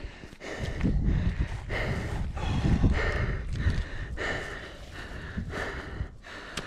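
Heavy panting of a trail runner catching his breath after a hard uphill effort, about two loud breaths a second.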